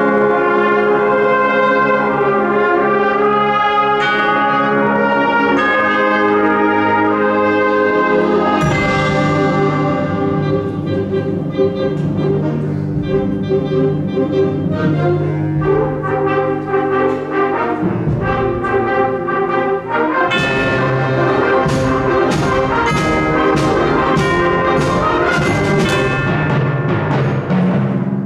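Concert band playing, with brass to the fore: held chords, then a loud percussion stroke about nine seconds in where the music changes, and repeated percussion strokes under the band from about twenty seconds on.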